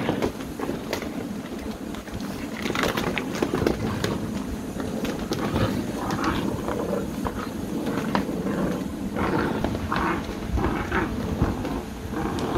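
American Bully puppies play-fighting, with short growls and yips that come more often in the second half. Claws click and scrabble on a hard plastic pool floor.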